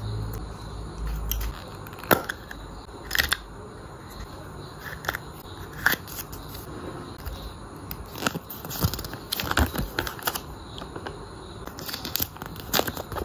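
Close-up handling of a Kinder Surprise yellow plastic toy capsule and its folded paper leaflet: a few sharp plastic clicks as the capsule is worked open, then a quicker run of crinkling and rustling as the paper leaflet is unfolded.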